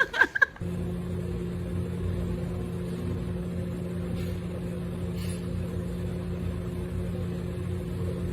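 A machine's steady low hum with a constant pitch, starting abruptly about half a second in as a woman's voice cuts off.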